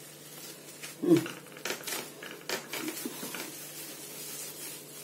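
Plastic wrap crinkling and crackling in a quick run of small crackles as it is rolled and twisted around a soft log of ice cream.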